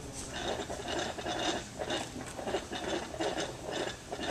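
Flagpole halyard rope running through the pulley as it is pulled hand over hand, giving a rhythmic scratching, squeaking rasp about two to three strokes a second.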